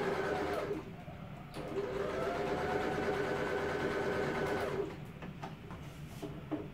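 Electric sewing machine running a top stitch: it slows and stops about a second in, speeds up again and runs steadily, then winds down and stops about five seconds in. A few clicks follow.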